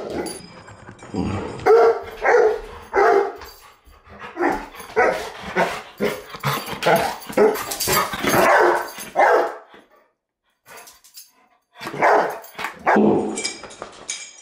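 Black Labrador barking in rapid, uneven bursts, excited at the word "walk". It stops for a couple of seconds near the end, then barks a few more times.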